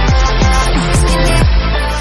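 Electronic dance music with a steady, punchy kick-drum beat over deep bass.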